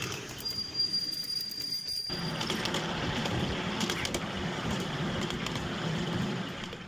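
Miniature railway passenger carriages running on the track, with a high, steady wheel squeal for the first couple of seconds. About two seconds in it changes to the close, continuous rumble and rattle of the carriage wheels and coupling on the rails, heard from on board the moving train.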